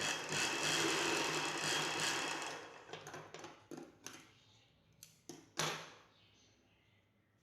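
Sewing machine running a short stitch for about two and a half seconds, then slowing and stopping, followed by a few sharp clicks.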